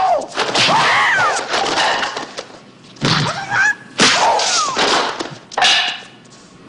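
Martial-arts film fight sound: a man's high, wailing battle cries that glide up and down, broken by sharp hits from a wooden fighting staff and blows. Sudden loud strikes come about three and four seconds in and again near six seconds.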